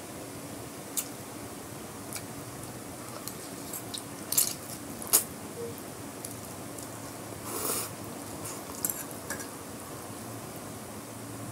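A person eating instant noodles: a few sharp clinks of a metal fork against a glass plate, with noodles slurped and chewed in between.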